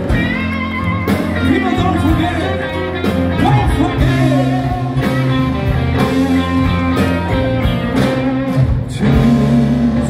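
Live blues-rock band playing: a singer over electric guitars, keyboard and drums.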